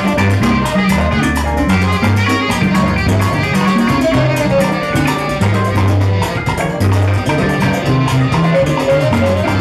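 Live Latin band playing: a Kala U-Bass plays a strong, repeated bass line under congas and a drum kit, with a saxophone holding a few melody notes.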